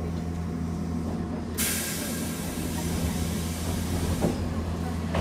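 Steady low electrical hum of a standing Keifuku Randen tram car, heard inside the cab. About a second and a half in, a loud hiss of compressed air starts suddenly and dies away near the end.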